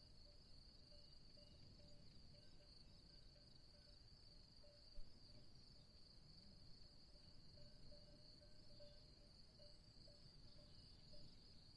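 Faint, steady, high-pitched chirring of an insect chorus, unbroken throughout, over a low background rumble, with one soft knock about five seconds in.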